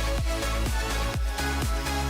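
Electronic dance background music with a steady, strong beat, about two beats a second, over sustained bass and chords.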